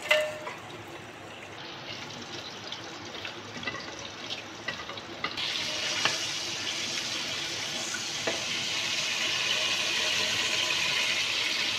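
Whole spices (cumin seeds, black cumin, bay leaf, cardamom, cinnamon, cloves) frying in hot oil in an aluminium pot: faint crackling at first, then a louder, steady sizzle from about five seconds in.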